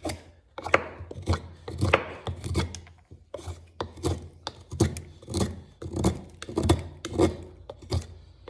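A handmade 1075-steel knife whittling wood, with repeated short scraping cuts at roughly two strokes a second. The strokes are a run of cuts meant to wear down the edge for an edge-retention test.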